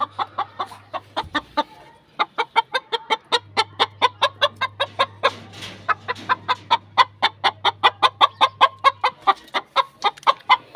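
White Aseel rooster clucking in a fast, even series of short notes, about six a second, with a short break about two seconds in.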